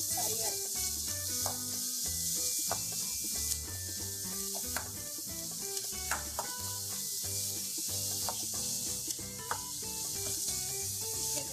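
Chopped onions sizzling in hot sesame oil in an aluminium kadai, stirred with a steel ladle that scrapes and knocks against the pan every second or so. Soft background music runs underneath.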